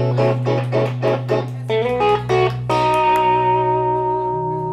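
Live electric guitar and electric bass: a run of quick, short guitar chords and notes, about four a second, then a final chord about three seconds in that is left ringing and slowly fading over a held low bass note.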